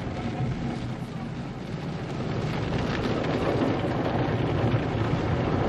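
Automatic car wash heard from inside the car's cabin: water jets and cloth brushes sweeping across the windshield and body make a steady, dense rushing that grows a little louder toward the end.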